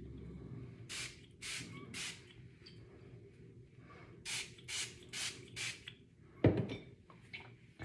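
Hand spray bottle spritzing a hair rinse onto hair: seven short hissing sprays, three about half a second apart a second in, then four more in quick succession a few seconds later. A single dull thump, the loudest sound, follows near the end.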